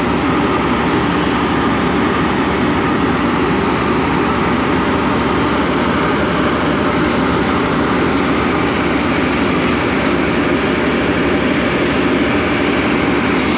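A workboat's engine running steadily under way, heard from its open deck: a constant, even drone with no change in pitch or level.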